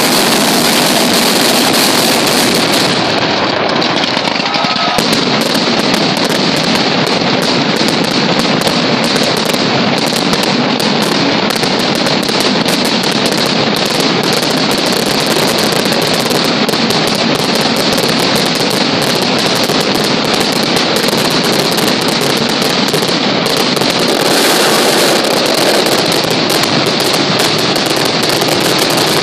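Pirotecnia Caballer mascletà: masclet firecrackers going off in a dense, unbroken barrage, the bangs following so fast that they run together into one continuous loud din.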